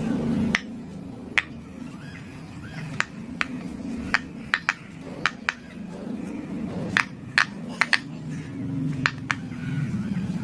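Silicone pop-it fidget toy bubbles being pressed through, giving a string of sharp, irregular pops, some in quick pairs.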